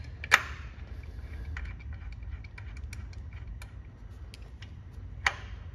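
Metal clicks and light clinks as a Triumph TR3 front brake caliper is handled and worked into place over the disc: a sharp click about a third of a second in, another near the end, and scattered small ticks in between, over a steady low hum.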